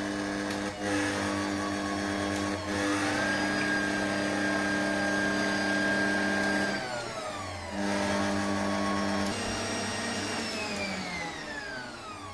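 Stand mixer's motor running steadily as its whisk beats eggs with sugar. A whine in its sound rises about three seconds in, holds, drops away near seven seconds, then slides slowly downward near the end.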